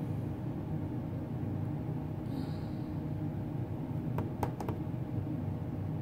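Steady low mechanical hum, like a fan or appliance running, with a few quick clicks about four seconds in.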